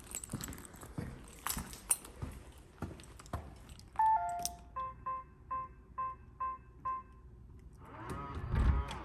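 Scattered handling knocks, then a short falling three-note electronic chime followed by a run of about six short, evenly spaced beeps from a device.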